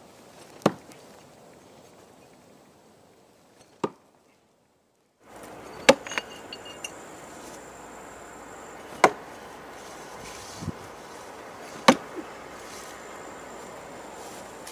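Spets 5 B.R.U.T throwing knives striking a wooden log-round target, five sharp thuds about three seconds apart, one of them followed by a brief metallic ring.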